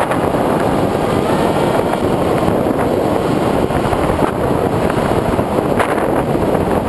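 Bixler 1.1 foam RC plane in flight, heard from its onboard camera: steady, loud rush of wind across the microphone with the electric pusher motor and propeller running under it.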